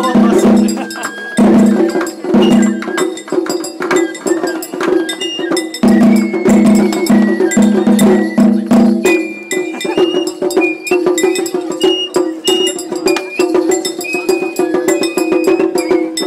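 Japanese festival hayashi music: a taiko drum and a small metal hand gong keep a quick, busy beat while a high flute plays short held notes of a melody over it.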